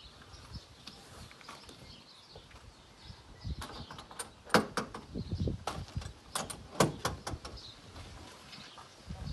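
Sharp clicks and knocks as the two rear catches of a Morgan's soft-top hood are undone: a run of them between about three and seven seconds in, two much louder than the rest.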